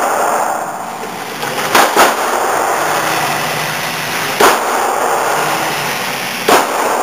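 Gunshots in an indoor shooting range: four sharp reports, two in quick succession about two seconds in, then single shots about two seconds apart, each with a hard echo off the range walls. A loud steady noise fills the gaps between shots.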